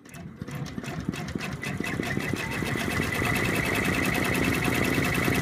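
Embroidery machine starting to stitch a blanket stitch: a rapid, even run of needle strokes that builds up over the first couple of seconds and then runs steadily with a steady whine.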